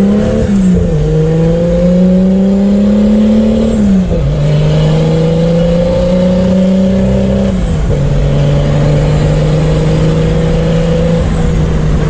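Chevrolet Opala's turbocharged inline-six engine accelerating through the gears. The engine note climbs, then drops at each of three upshifts, about a second in, around four seconds in and near eight seconds. It then holds steady.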